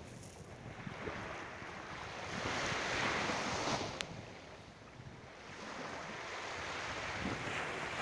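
Small lake waves washing onto a sandy shore, swelling about three seconds in and again near the end, with wind rumbling on the microphone. A single sharp click about four seconds in.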